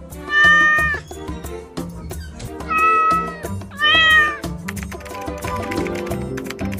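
A cat meows three times, short calls at about half a second, three seconds and four seconds in, over background music with a steady beat.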